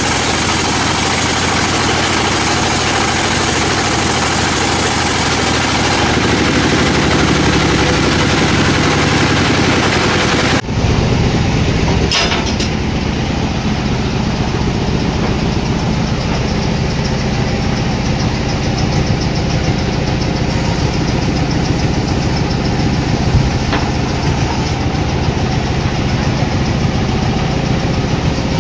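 Sawmill machinery running steadily. The sound changes abruptly about ten seconds in, then settles back to the same steady run.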